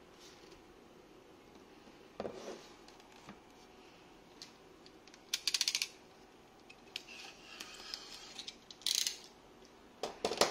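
Cardboard box being handled with a thump about two seconds in, then a fast run of about ten clicks as a snap-off utility knife's blade is slid out. A short scratchy burst follows, and a couple of knocks near the end.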